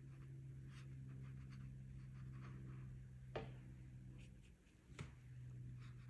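Faint strokes of a watercolour brush on paper, with two sharp taps, one a little past three seconds in and one about five seconds in, over a steady low hum.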